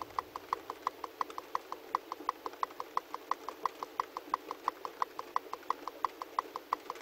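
A vehicle's warning chime beeping rapidly and evenly, about six short beeps a second, over a faint steady hum.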